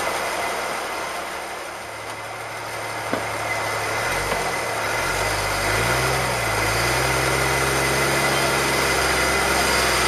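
Jeep Cherokee XJ engine running at low revs while rock crawling: about four seconds in it revs up and down a few times, then holds a steady low-pitched drone as the Jeep creeps forward over the rocks.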